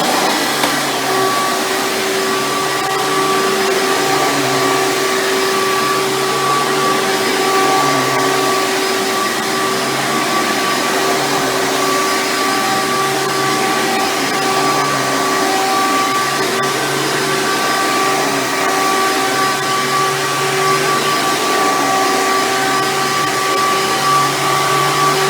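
Hoover Soft & Light Supreme Elite-style upright vacuum with its 12-amp motor, running steadily with a constant whine. It is working normally after its cord has been replaced.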